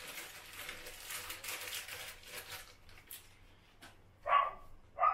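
Crinkling of a clear plastic bag being opened and handled to get out the new cistern's fixings, then a few light clicks. Near the end come two short, loud dog barks.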